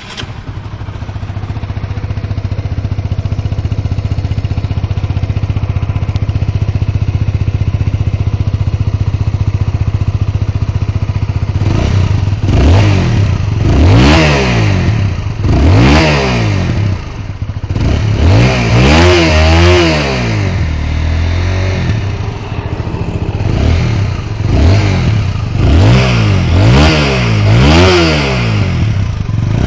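Single-cylinder motorcycle engine on its stock exhaust, idling steadily, then revved again and again from about twelve seconds in, each rev rising and falling in pitch.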